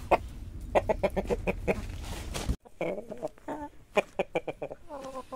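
Domestic chickens clucking: a string of short, quick clucks, with a low rumble underneath that cuts off abruptly about two and a half seconds in.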